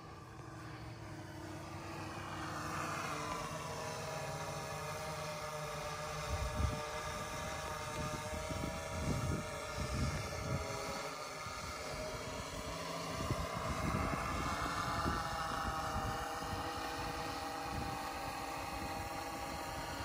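Quadcopter's electric motors and propellers whining in flight, several tones drifting up and down in pitch as it flies under an automatic return-to-launch failsafe. It grows louder over the first few seconds, with uneven low rumbles in the middle stretch.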